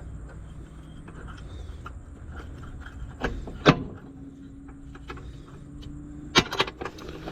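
Hand tools clinking and knocking against metal bolts and fittings: one sharp clink about three and a half seconds in and a quick run of clinks near the end, over a low steady hum.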